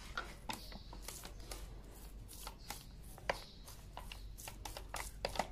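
Fingers raking and scraping through damp granular raw material in a stainless steel tray, a run of small gritty scratches and irregular ticks.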